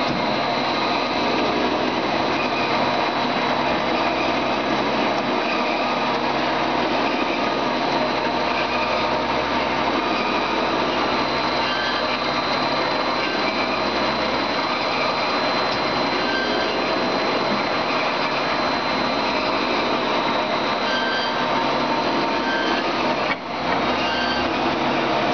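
Large industrial metal-cutting bandsaw running steadily, a dense even machine noise with a constant high whine. The sound drops out briefly about 23 seconds in.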